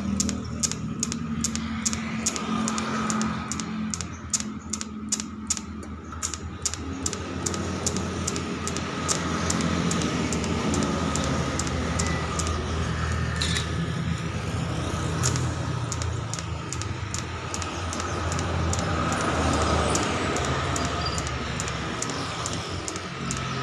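Stick-welding arc crackling as a joint on a stainless steel motorcycle exhaust pipe is welded, with a run of sharp ticks throughout.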